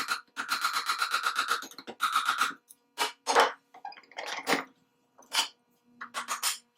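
Metal being worked by hand on an antique carriage lamp's tail to free the bottom of the oil pot. There is a fast, even rasping of about ten strokes a second for the first two and a half seconds, then scattered scrapes and clicks.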